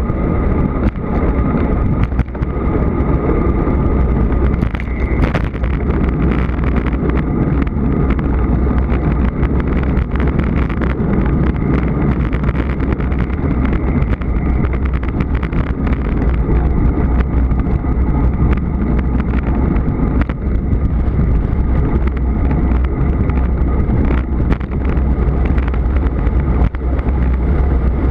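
Heavy wind buffeting on the microphone of a camera carried on a road bicycle at speed, with steady rumbling tyre and road noise under it.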